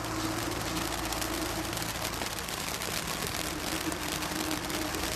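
Brothers Pyrotechnics Leaping Lizards battery of fountains gushing sparks: a steady hiss thick with rapid crackling, building as the fountain takes hold at the start.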